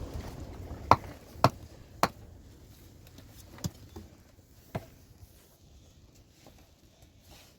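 Five sharp knocks or blows: three loud ones about half a second apart, then two softer ones a second or so apart, over wind rumbling on the microphone that dies down after the first couple of seconds.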